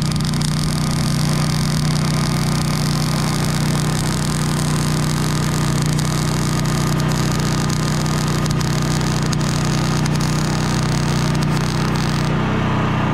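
Arc welding on a steel pipe fence rail: the arc's steady crackling hiss over the steady low hum of the welding machine. The arc hiss cuts off about a second before the end while the hum runs on.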